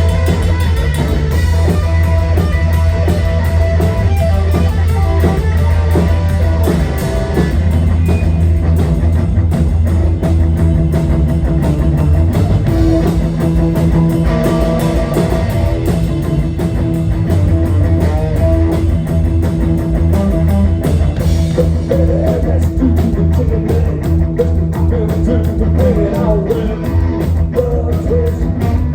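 A live rock band playing: distorted electric guitar with bass and drum kit, loud and steady.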